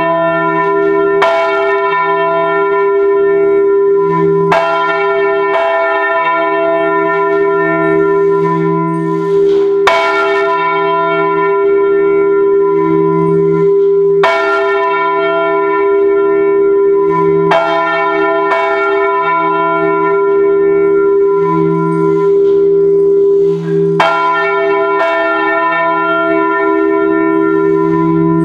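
Full peal of four bronze church bells, tuned e′, g♯′, b′ and c♯′ and cast in 1949 by the A. Junker foundry of Brilon, heard up close in the bell chamber. Clapper strikes land irregularly, every second to few seconds, over a continuous ringing hum of the bells.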